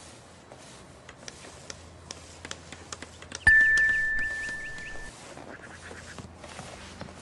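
A cartoon sound effect: a single bell-like ding struck about halfway through, ringing on one clear note for about a second and a half and fading away, after a run of light ticking clicks.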